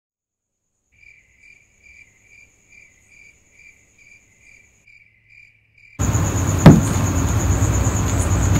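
Faint crickets chirping, about three chirps a second. About six seconds in, a loud, steady rushing noise cuts in suddenly, and a heavy thud with a falling boom follows shortly after.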